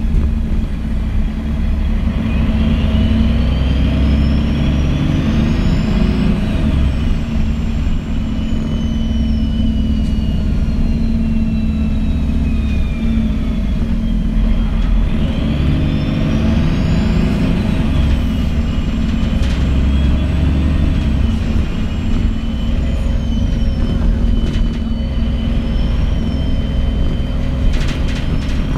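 Loud ride-along sound inside a 2001 MAN NG 313 articulated bus: the diesel engine's low rumble with the Voith automatic gearbox's high whine, which twice rises in pitch as the bus pulls away and speeds up, holds, then slowly falls as it slows.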